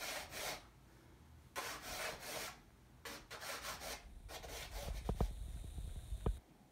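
White chalk scraping and rubbing across a gesso-toned canvas in a series of separate strokes, shorter and quicker about two-thirds of the way through. Near the end come a few dull knocks, then the sound cuts off suddenly.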